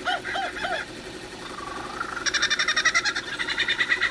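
Male lyrebird singing mimicked calls of other birds: a few quick arched notes, then a fainter gliding note, then a fast rattling trill from about halfway.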